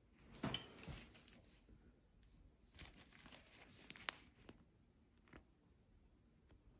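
Faint crinkling of a small clear plastic bag of diamond-painting drills being handled and turned, with a few sharp clicks. It dies away after about four and a half seconds.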